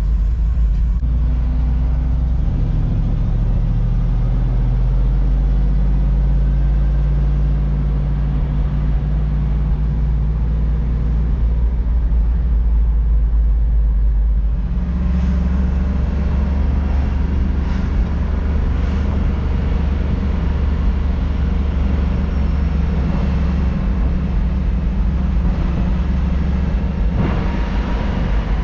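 A truck loaded with about 6.4 tons of sawdust driving at road speed: a steady low engine and road drone. Its low pitch changes about 2 seconds in and again about 15 seconds in.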